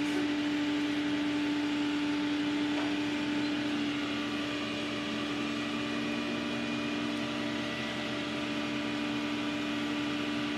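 Flatbed tow truck running while its tilted bed holds the car: a steady engine hum, with a second, lower drone joining about four seconds in.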